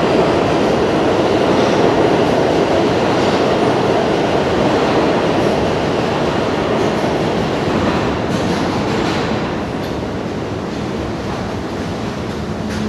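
New York City subway train noise on the platform: a steady rumble of wheels on rail that is loudest at the start and slowly eases as an R32 train approaches with its headlights on. A few faint clicks come a little after the middle, and a steady low hum sets in near the end.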